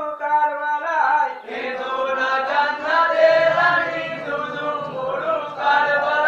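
Men chanting a marsiya, a Muharram lament: a single lead voice at first, then a chorus of many men joining in about a second and a half in.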